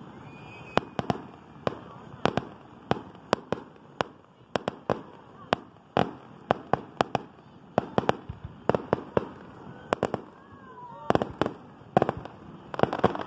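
Fireworks going off: a rapid, irregular string of sharp bangs and crackling pops, several a second, growing denser near the end.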